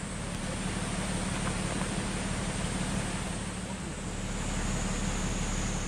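A vehicle engine running with a steady low hum under an even rushing noise of wind or road.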